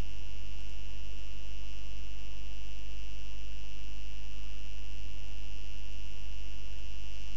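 Steady electrical mains hum with a steady high whine and hiss over it, unchanging throughout.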